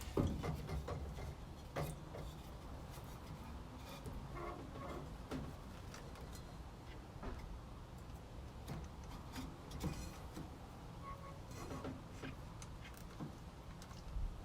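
Scattered light knocks and clicks from working and handling a wooden piece by hand, over a steady low hum; the sharpest knock comes at the very start.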